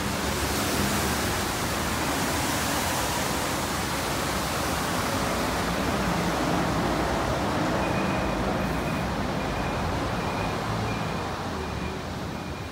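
Steady rushing street noise of road traffic and trams, easing slightly near the end. A faint high beep repeats at an even pace from about two-thirds of the way in.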